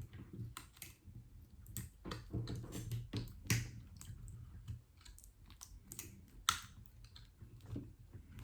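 Irregular small clicks, ticks and crinkles as the plastic protective film and tape covers are peeled off a replacement iPad mini screen.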